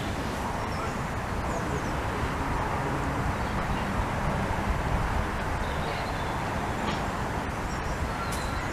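Steady outdoor background noise with a low rumble, and a few faint high chirps.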